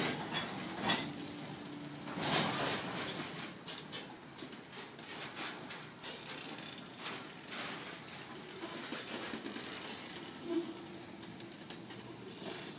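Freight train hopper cars rolling past close by: steady wheel-on-rail rumble with many irregular metallic clanks and rattles, busiest in the first few seconds.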